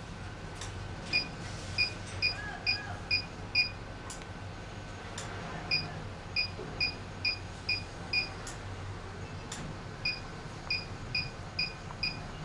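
HIFU (high-intensity focused ultrasound) face-lifting machine beeping as it fires treatment shots: three runs of five or six short, high beeps about half a second apart, with pauses of about two seconds between runs.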